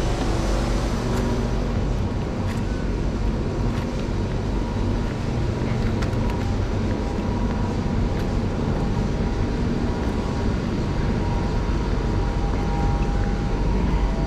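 Steady rumble and hum of a Singapore MRT train beside an underground station platform, with a few faint steady tones and an occasional faint click.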